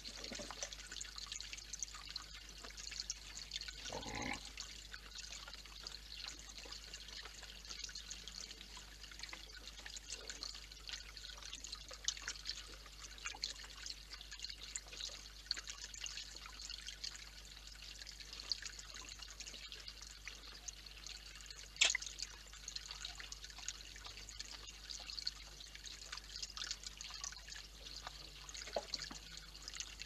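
Water trickling and dripping steadily over a small stone fountain, a busy patter of tiny drips. One sharp click stands out late on.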